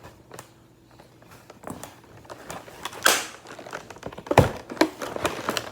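A cardboard and plastic toy box being handled and worked open: scattered clicks and taps, a short scraping swish about three seconds in, and a thump a little after four seconds.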